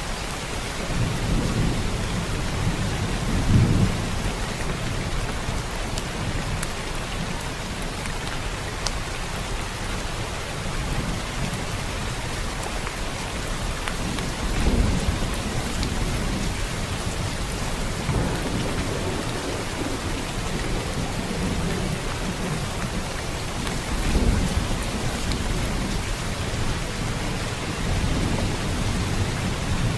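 Steady heavy rain hiss, with low rumbles of thunder that swell and fade several times.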